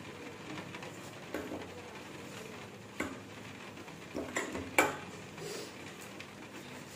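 A few light clinks of a knife and cut tomato pieces against a small steel pot as a tomato is sliced by hand, the loudest about five seconds in.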